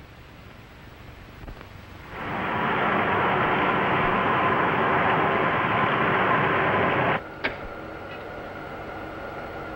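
Rocket-ship engine sound effect: a loud, steady rushing noise that starts about two seconds in and cuts off abruptly about five seconds later. It is followed by a short click and a lower, steady hum.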